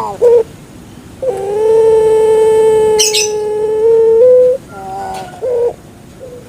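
A puter pelung (Barbary dove) cooing. One long, drawn-out, steady 'kwok' note of about three seconds lifts slightly in pitch at its end, followed about five seconds in by a shorter, broken trilling note. A brief crackle comes about three seconds in.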